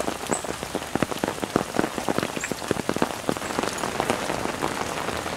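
Steady heavy rain falling, with many separate close drop hits ticking over the even hiss of the downpour.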